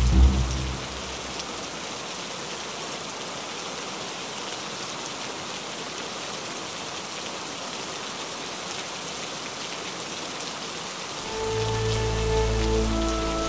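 Steady heavy rain. Music fades out in the first second, and low, held notes of music come back in about eleven seconds in.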